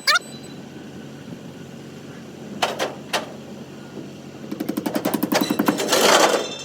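Semi truck stuck in mud trying to drive out: two sharp knocks, then a loud rapid rattling pulse for about two seconds near the end as the truck is worked to spin free.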